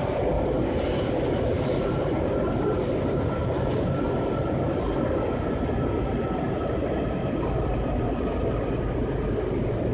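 Washington Metro railcar heard from inside the car while the train runs: a steady rumble of wheels and motors on the track. Thin high wheel squeals come and go in the first few seconds, then die away.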